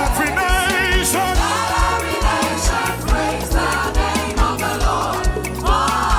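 Gospel worship music: voices singing a wavering melody over a steady drum beat.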